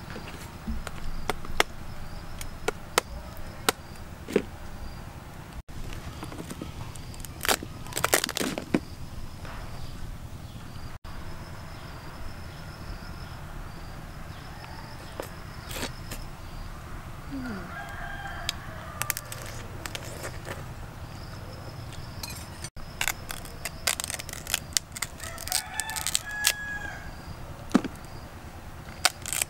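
Cooked king crab leg shells cracking and snapping in sharp clicks as they are broken apart and peeled by hand. A rooster crows in the background, about two-thirds of the way through and again near the end, over a steady high insect drone.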